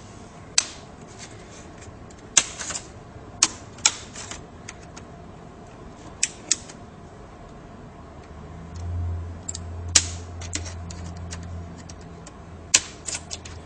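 Plastic clip tabs of a laptop LCD screen's front bezel snapping loose as the bezel is pried off with a flathead screwdriver: a scattered string of sharp snaps and clicks. A low hum comes in for a few seconds after the middle.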